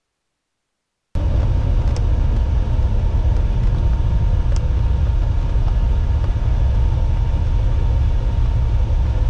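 Piston engines and propellers of a light twin-engine airplane running at taxi power: a steady low drone that cuts in suddenly about a second in.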